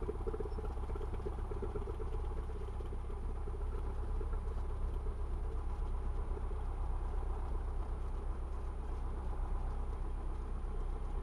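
Cessna 172R's four-cylinder Lycoming engine running steadily at low taxi power, heard from inside the cockpit.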